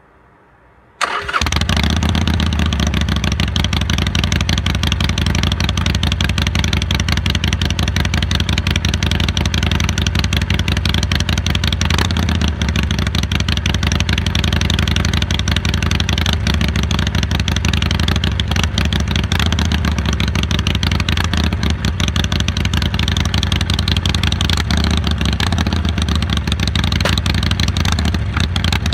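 Harley-Davidson Iron 883's air-cooled 883 cc V-twin, breathing through a Jekill & Hyde valve-controlled exhaust, starts abruptly about a second in and then runs loud and steady.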